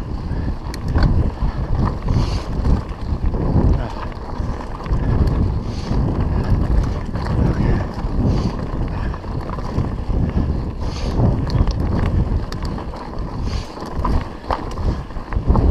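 Wind buffeting the microphone of a body-mounted action camera as a mountain bike rides fast over a rocky dirt singletrack, with a rumble that rises and falls and scattered rattles and knocks from the bike jolting over stones.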